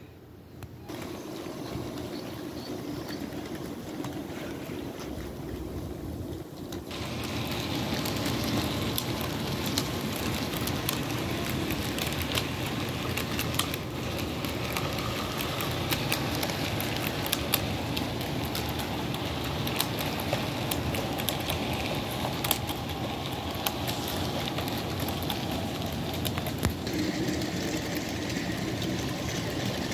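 HO scale model freight train rolling along the track: a steady rumble of the running train with many light, quick clicks from the wheels on the rails. It gets louder about seven seconds in.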